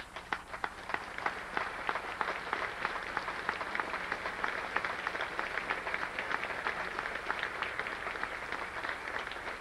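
Audience applauding: a few scattered claps at first, filling out within about a second into steady applause.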